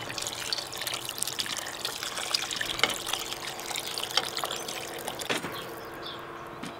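Water pouring from a kettle into a large aluminium pot of stew, splashing into the broth. The pour stops near the end.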